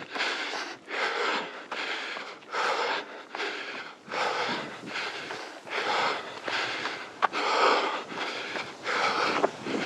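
A runner breathing hard and rhythmically, each breath a short noisy rush close to the microphone, with a couple of sharp clicks of footfalls.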